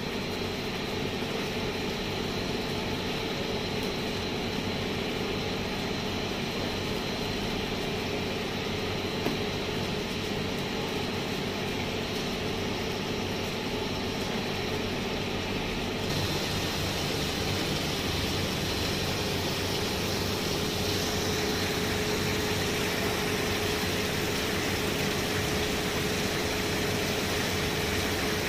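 Steady hum and hiss of a self-cleaning multi-disc screw press running on its gear motors, with a steady low tone throughout. About halfway through, the sound turns brighter and a little louder.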